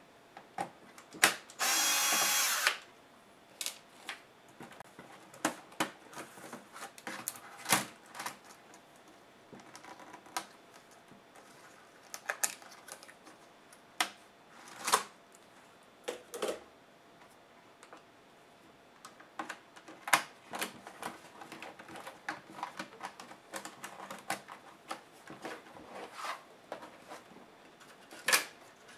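A cordless electric screwdriver whirs for about a second near the start, driving a screw out of a Dell Studio 1558 laptop. Then scattered sharp clicks and taps of the laptop's plastic keyboard and case follow as the keyboard is pried up and lifted out and the case is handled.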